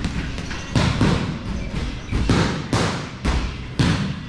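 Boxing gloves smacking a double-end bag in quick combinations: about eight sharp hits in uneven clusters, some in rapid pairs.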